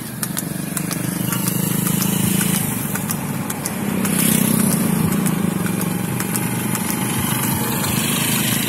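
Motorcycle engine running steadily at road speed, rising a little about halfway through, with wind noise on the microphone and scattered light clicks.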